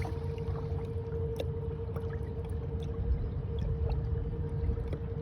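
Electric trolling motor driving a kayak at speed 3: a steady motor whine over a constant low rumble of water and wind, with small scattered ticks and splashes.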